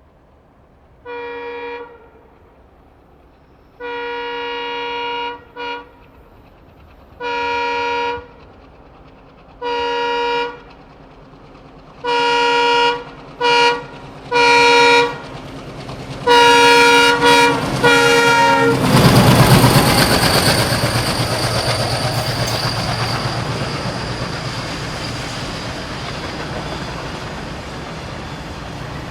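WDG3A diesel locomotive sounding its multi-tone horn in about ten blasts, short and long, growing louder as it approaches. It then passes close by with the loud chugging of its ALCO 251 V16 diesel engine and the steady whistle of its turbocharger, fading slowly as the wagons roll past with a clickety-clack.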